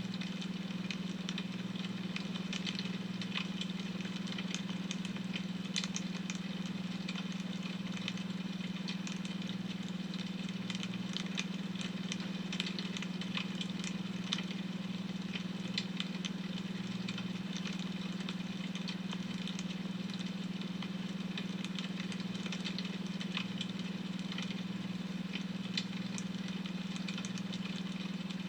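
Wood fire crackling with irregular small pops and snaps, a few louder ones here and there, over a steady low drone: the beta-wave tone laid under the fire sound.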